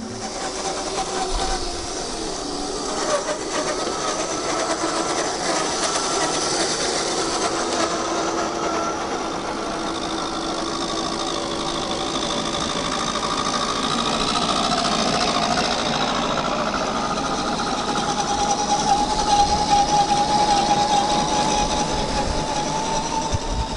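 Electric motors and geared drivetrains of 1/10-scale RC Defender 90 crawlers whining as they drive over concrete pavers, the whine shifting in pitch with the throttle and rising about two-thirds of the way through.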